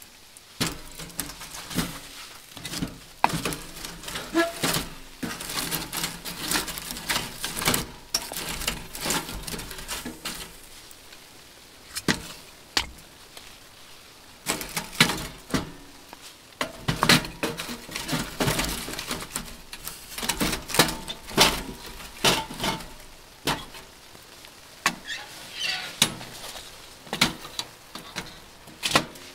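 Irregular knocks, taps and clinks of hard objects being handled, some with a short ring. They come in two busy spells with a quieter lull about halfway.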